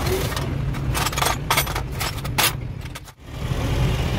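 Truck engine idling, with a quick series of sharp metallic clicks and scrapes over the first two and a half seconds. The sound almost cuts out about three seconds in, then the idle comes back.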